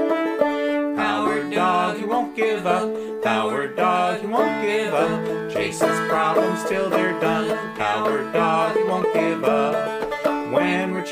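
Banjo-led country-style tune with other plucked strings; the playing fills out about a second in.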